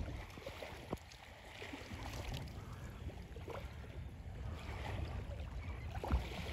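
Wind buffeting the microphone in a low, steady rumble over faint lapping water, with a couple of small knocks, about a second in and near the end.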